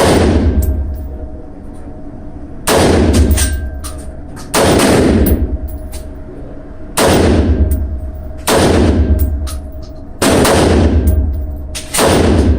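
AR-15 rifle fired in single shots, seven in about twelve seconds at an uneven pace of one every one and a half to two and a half seconds. Each shot is a sharp crack followed by an echo that dies away over about a second.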